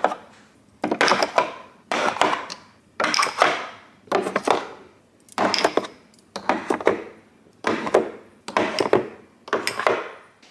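Spice jars being set down one after another into a bamboo spice rack in a drawer: short clusters of wooden clacks and knocks, about one a second.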